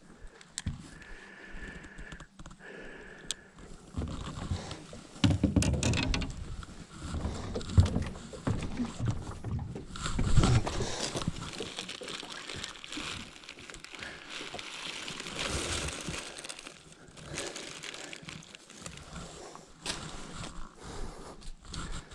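Irregular rustling and knocking of someone moving about and handling gear on grassy ground, with heavy low thumps from about four to eleven seconds in, followed by several seconds of dense crackly rustling.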